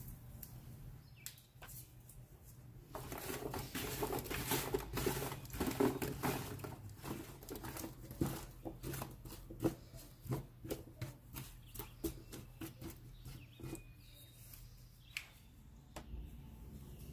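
Handling sounds: a run of light clicks and taps with a denser rustling stretch a few seconds in, over a steady low hum.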